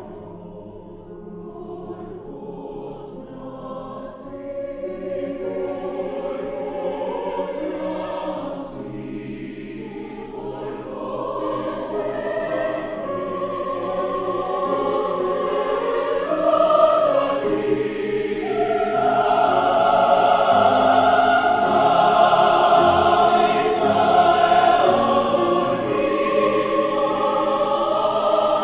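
Chamber choir singing long sustained chords that grow steadily louder through the first two-thirds, then hold at full voice.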